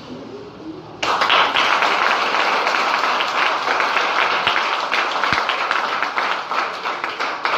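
Audience applause, a dense patter of many hands clapping that starts abruptly about a second in and tapers off near the end.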